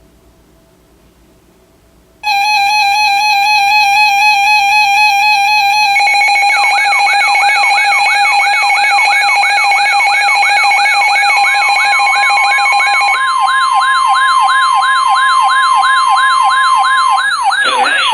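Layered electronic alert tones start suddenly about two seconds in: a warbling tone with a steady higher tone added, then a fast repeating siren-like sweep about three times a second. A steady tone near 1 kHz sounds over them for several seconds before stopping near the end.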